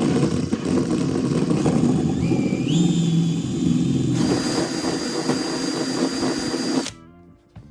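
A handheld power tool's motor running loudly, its whine stepping up in pitch partway through, then cutting off suddenly near the end.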